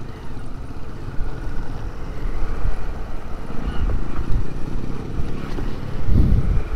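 Motorcycle engine running with a low rumble that swells louder about four seconds in and again near the end.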